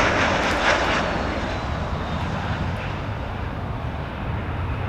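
Jet airliner's engines, a loud rushing noise fading steadily as the aircraft moves away.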